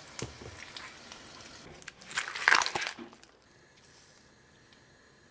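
Hot oil sizzling with small crackles, then a loud crunchy, crinkling rustle about two seconds in that lasts about a second, after which the sound drops to a faint background.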